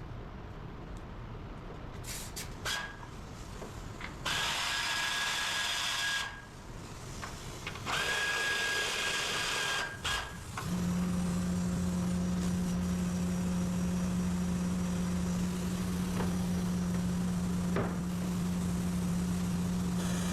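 Two bursts of about two seconds each from a power tool, then a steady low machine hum that starts about ten seconds in and keeps running.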